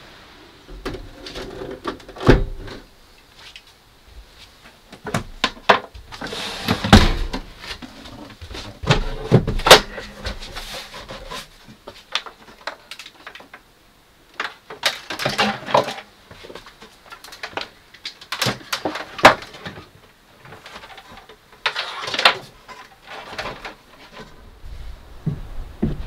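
Irregular knocks, clicks and clunks of gear and cables being handled and set down in the bus's wooden interior, with a few sharp bangs standing out among quieter rustling.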